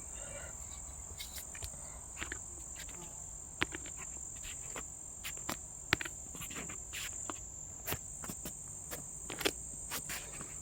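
Crickets or other insects chirring in a steady high-pitched drone, with scattered light clicks and knocks over it.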